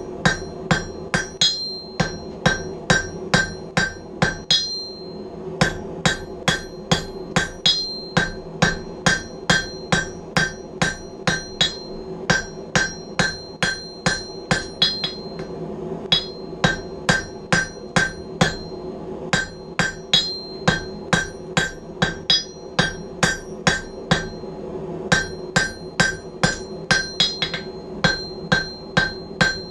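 Hand hammer striking a hot railroad screw on an anvil, about two to three blows a second, each blow followed by the anvil's ringing, as the square section is rounded. The blows stop briefly a few times, about five seconds in and again later. A steady low hum runs underneath.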